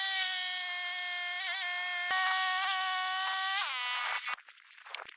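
Sawmill cutting a cottonwood log: a steady high whine with many overtones. A little before four seconds in the pitch drops and the sound fades away.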